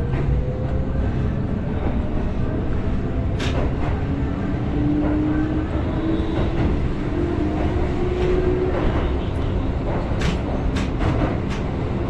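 Keihan 8000 series electric train running, with a steady low rumble and a motor and gear whine that slowly rises in pitch as the train picks up speed. Sharp clicks of the wheels over rail joints come about three seconds in and again in a quick cluster near the end.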